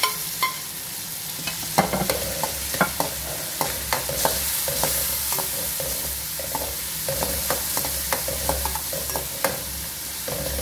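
Diced tomatoes frying in hot oil with onion and garlic, sizzling steadily, while a metal slotted spoon stirs and scrapes against the aluminium pan with frequent short clicks. A couple of light ringing metallic taps come right at the start.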